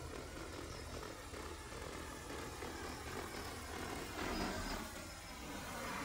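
Agricultural spray drone's rotors running with a steady hum, getting louder from about four seconds in as it comes close overhead.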